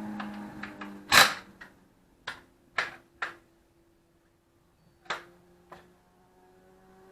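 About six sharp knocks and clanks of hand tools and parts as the alternator and its bracket are unbolted from a Nissan SR20DET engine. The loudest comes about a second in, three follow in quick succession, and two lighter ones come near the end.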